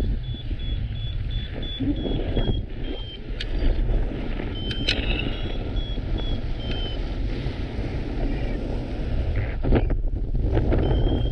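Strong wind buffeting the microphone, a dense rumble. A faint run of quick high beeps comes and goes over it, near the start, again around the middle and near the end.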